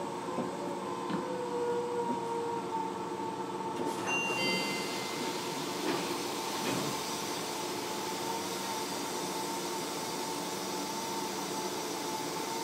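Running sound heard inside a Fukuoka City Subway 1000N series car underway: steady wheel-on-rail rumble under steady whining tones from the train, with a few clicks over the rail. About four seconds in, a hiss joins and stays.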